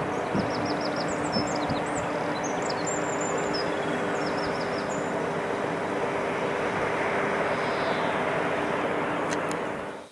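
Steady industrial roar with a low, even hum from the nuclear power station's plant, with small birds chirping high over it in the first half. The roar cuts off suddenly near the end.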